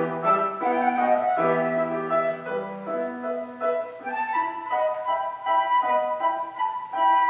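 Solo flute playing a concerto melody of moving and held notes, with piano accompaniment beneath.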